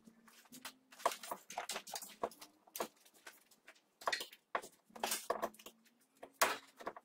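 Irregular clunks, clicks and scrapes of an unbolted steering rack being shifted and twisted by hand against the subframe of a Mercedes-Benz Vito; the rack moves but will not turn sideways to come out.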